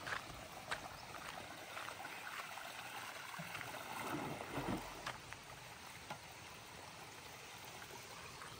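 Faint running, trickling water, with a few scattered light clicks and knocks.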